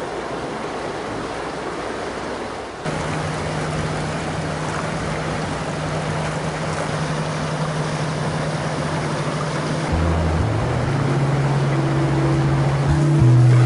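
Pumped water rushing through an indoor rowing tank at a high flow setting, a steady rushing noise that steps louder about three seconds in, with a steady low hum under it. Near the end several low sustained tones come in and change pitch, and they become the loudest sound.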